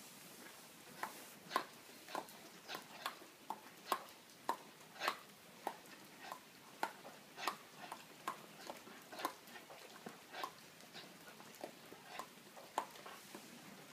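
Doberman's jaws snapping shut again and again as it bites at rain dripping from the roof edge: short, sharp clacks, about two a second at uneven spacing.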